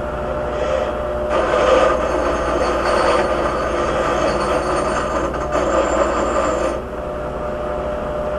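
Motor-driven wire wheel spinning with a steady hum while a steel baler part is pressed against it to clean it for welding. The scraping gets louder from about a second in and eases off near the end.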